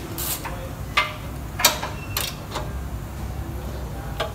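Hand tools clinking and clicking against metal under a car during engine-mount replacement work: a handful of separate sharp knocks and clicks over a steady low hum.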